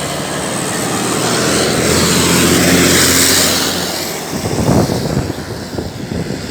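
A motor vehicle passing close by: a steady engine hum with tyre and road noise that swells to a peak about three seconds in, then fades.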